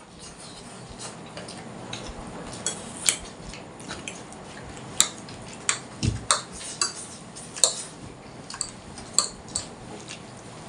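Eating noises as Maggi noodles are eaten from plates: irregular small clicks and taps, a few louder than the rest, with a dull knock about six seconds in.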